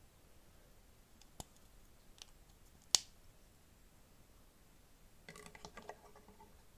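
Plastic LEGO pieces clicking and knocking together as the small leg assemblies are handled. There are a few separate sharp clicks, the loudest about three seconds in, then a short rattling clatter of pieces near the end.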